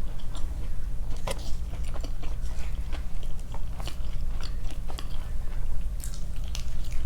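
Close-mic chewing and biting of spicy fried chicken, with many short crunchy clicks and mouth sounds scattered throughout, over a steady low hum.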